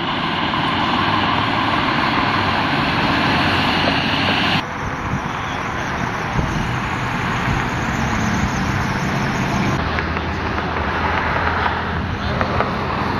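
Vehicle engines running and road traffic noise, a steady rumble with a low hum that changes abruptly about four and a half seconds in and again near the end.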